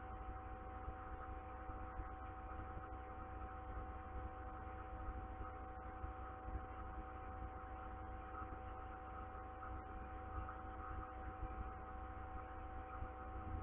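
Steady low background hum with a few faint, even whining tones over a light hiss; nothing changes through it.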